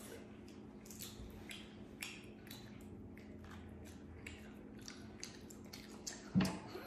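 Eating sounds: mussel and crawfish shells clicking and crackling as they are handled and picked apart, with chewing, over a low steady hum. A louder knock comes about six and a half seconds in.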